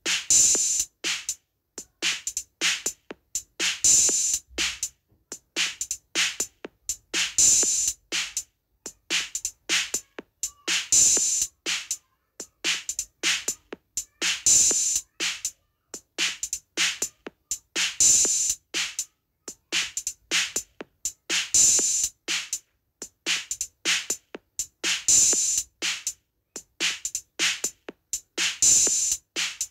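Drum beat in a halay dance rhythm: a short pattern of strokes with silent gaps, repeating about every three and a half seconds, each cycle opening with one loud, bright accented hit.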